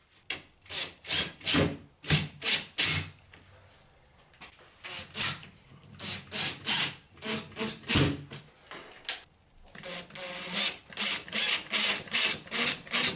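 Cordless driver sinking short drywall screws through a metal angle bead into plasterboard, in many short rasping bursts. It pauses briefly twice as the screw is moved to the next hole.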